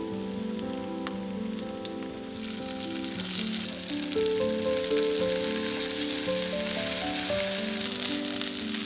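Tomato puree sizzling in hot oil and fried garlic in a wok as it is poured in and stirred; the sizzle swells about two and a half seconds in and eases near the end.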